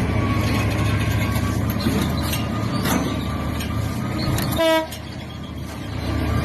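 Heavy diesel machinery, a large excavator, running steadily with a few knocks, then one short horn blast about four and a half seconds in, after which the engine noise drops.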